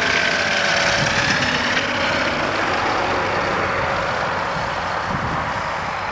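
Ultralight trike's Suzuki G13BB four-cylinder engine and pusher propeller in flight, a steady drone that fades a little as the trike flies away.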